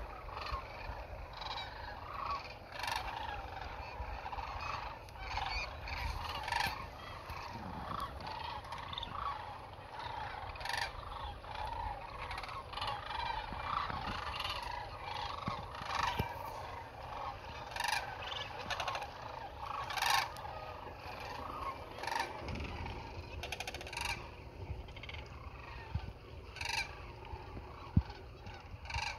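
A large flock of sandhill cranes calling all at once, many overlapping rolling, rattling bugle calls in a continuous chorus.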